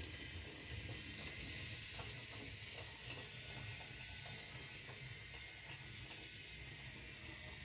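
Toy train running on its track: a faint, steady whir with light, irregular clicking.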